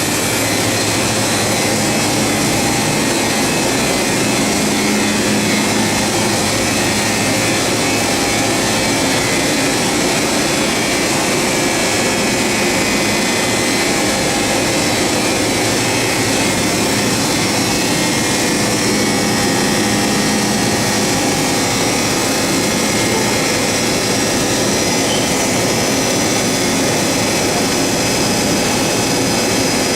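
Steady, loud whirring drone of industrial machinery in a factory: a powered-up CNC horizontal machining center and the plant around it, with a faint hum and no distinct clanks or tool changes.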